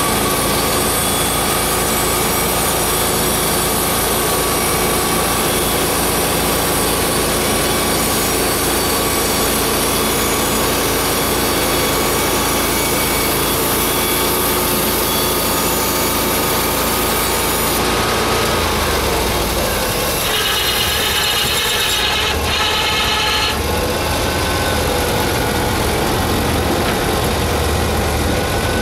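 Portable band sawmill running, its engine under load while the blade saws through a log. About 18 seconds in the sound changes and the engine runs on more lightly, near idle.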